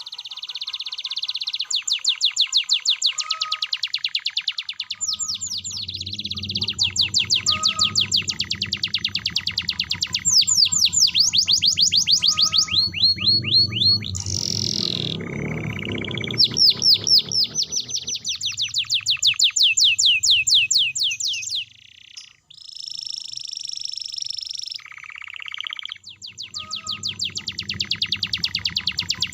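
Domestic canary singing a long, fast song of rapidly repeated trills and rolls, with the phrase changing every few seconds. A low hum runs underneath from about five seconds in. It is a loud, persistent 'gacor' canary song of the kind used to lure other canaries into singing.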